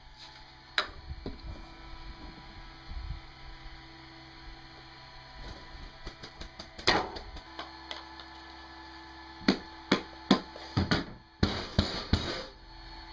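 A string of sharp knocks and clatter from tools and parts being handled while building the bulldozer, with a loud cluster in the second half, over a faint steady hum.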